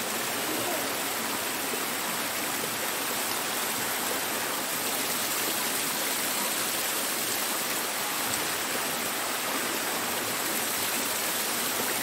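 Small waterfall cascading over rocks, with water pouring from a bica pipe spout: a steady, even rush of falling and splashing water.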